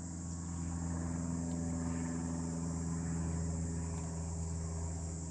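A steady low engine hum from a distant motor, over a constant high chirring of insects.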